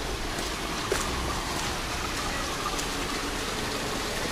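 Steady hiss of light rain, with a faint tap about a second in.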